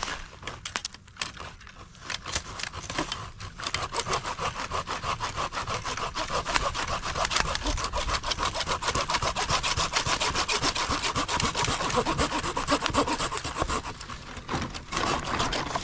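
RUITOOL Japanese pull saw cutting through wood in quick, even back-and-forth strokes. The strokes are lighter for the first few seconds, then steady, and ease off briefly near the end.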